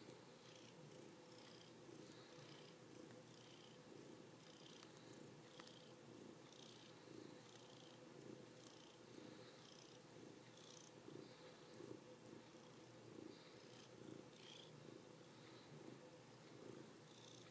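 Domestic tabby cat purring faintly close to the microphone, the purr pulsing in a steady rhythm with its breaths.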